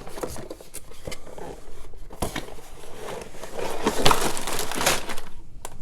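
A cardboard LEGO set box being cut open with a knife and its contents handled: crinkling and scraping of cardboard and plastic with scattered clicks, busiest and loudest about four seconds in.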